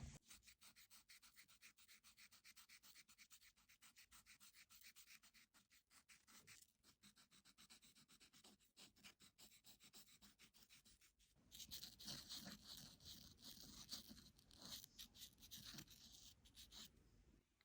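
Faint scratchy scribbling of colouring in on paper, many quick back-and-forth strokes, growing louder in the last third.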